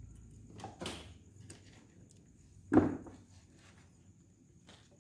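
Handling noise from a plastic motorcycle headlamp housing being picked up and moved on a workbench: a light clatter under a second in, then one dull knock a little under three seconds in, the loudest sound.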